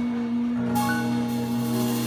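Closing bars of a live song with keyboard accompaniment: a single held note sounds throughout, while a lower note enters about half a second in and short higher keyboard notes ring out over it.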